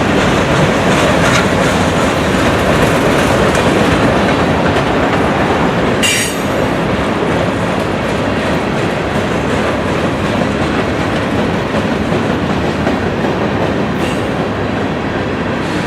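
Norfolk Southern empty grain freight train rolling past on a curve: a steady rumble and clatter of wheels on the rails, with short, high wheel-flange squeals about six seconds in and again near the end.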